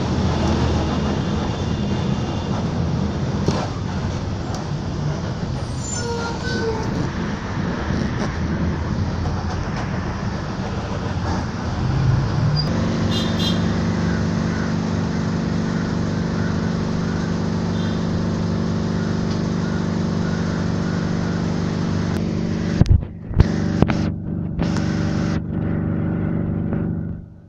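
Bus engine running with road noise, heard from inside the passenger cabin. About halfway through, the engine settles into a steady hum, and near the end the sound cuts out briefly a few times.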